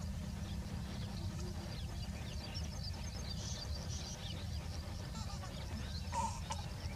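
Small birds chirping over a steady low rumble, with one short, louder call about six seconds in.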